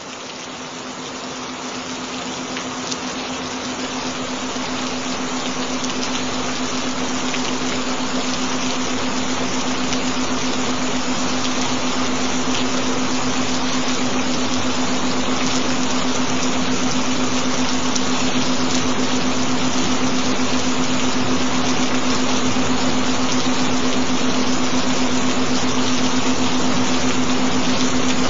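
Steady rain-sound track, an even hiss of falling rain, with a steady low hum-like tone held underneath as the embedded frequency tone. It fades in gradually over the first twenty seconds or so, then holds steady.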